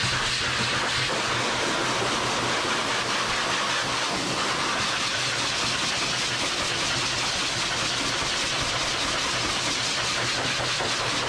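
High-velocity grooming dryer blowing air through its hose and nozzle into a dog's thick wet coat: a steady, loud rush of air over a low motor hum.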